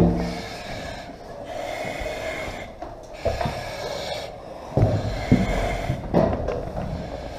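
A firefighter breathing hard through a breathing-apparatus mask while crawling through a metal wire cage, with several heavy knocks and scrapes as equipment bumps against the cage bars: at the start and a few more in the second half.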